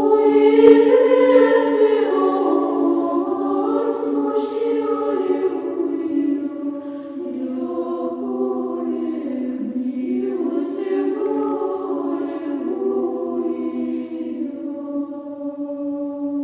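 A choir singing a slow chant over one low note held steadily beneath it, with the upper voices moving slowly.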